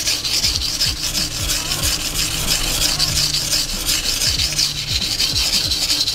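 A Nishida kurouchi petty knife's blade scraping back and forth on a wet whetstone in quick repeated strokes: steel being ground off to remove a chip from the edge.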